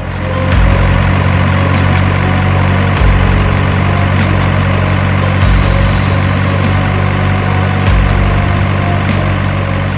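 Truck engine idling sound effect: a steady deep rumble with a pattern that repeats about every two and a half seconds.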